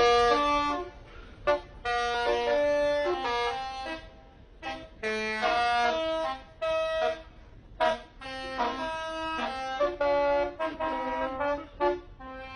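A bus's telolet horn, a set of electric air-horn trumpets, playing a tune: phrases of short and held notes stepping between pitches, with brief pauses between phrases.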